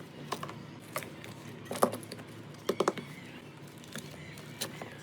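Toy car being handled during cleaning: a handful of sharp, irregular clicks and taps, loudest about two seconds in, with a quick cluster just before three seconds.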